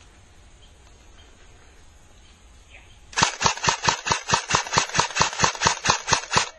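CYMA AK74U airsoft electric gun firing a rapid string of about twenty shots, roughly six a second, starting about three seconds in and lasting about three seconds.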